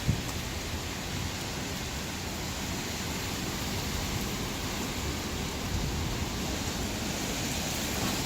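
Steady rush of heavy rain and wind in a tornado's storm.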